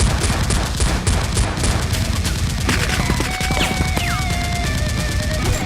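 Rapid automatic gunfire sound effects, a dense run of shots with no break. Music with held tones comes in underneath about three seconds in.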